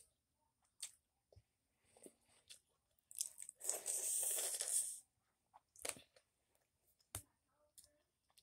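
Close-up eating sounds of a person working shellfish from a seafood boil at the mouth with their fingers: a few sharp clicks and smacks, and a louder stretch of crunching and sucking lasting about two seconds in the middle.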